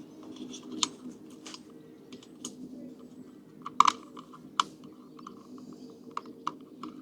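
Small sharp plastic clicks and taps at irregular intervals as wiring connectors are plugged back into a diesel heater, the loudest a quick double click about four seconds in, over a steady low hum.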